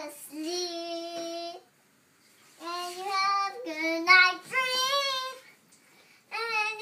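A young girl singing to a baby: short phrases of held notes, with two brief pauses between them.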